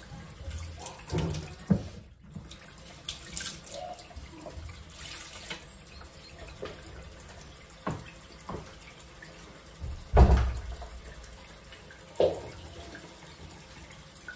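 Kitchen mixer tap running into a stainless-steel sink, the stream splashing onto dishes, left open to draw hot water through; the water is still coming out cold. Several knocks sound over it, the loudest a heavy thump about ten seconds in.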